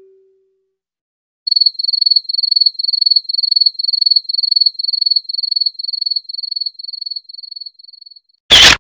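Cricket chirping sound effect, the stock 'awkward silence' meme: a high chirp repeating about three times a second, fading out near the end. It is cut off by a short, loud burst of noise.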